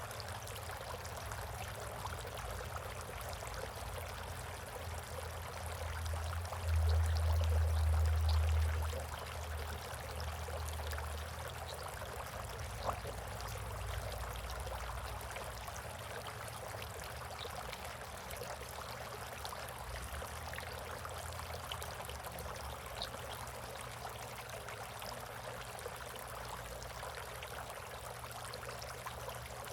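Water steadily trickling and splashing in a bird bath. A low rumble swells for about two seconds roughly seven seconds in.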